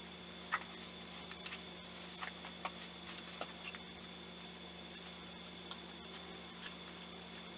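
Faint, scattered light clicks and taps of metal parts as a cast aluminium intake manifold is handled and fitted onto a Nissan VK45DE V8, the sharpest about half a second and a second and a half in, over a steady low hum.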